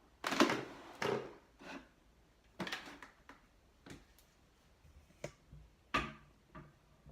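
Scattered clicks and rustles of hands handling hair and styling tools, the loudest a noisy rustle about half a second to a second in, with smaller clicks near three and six seconds.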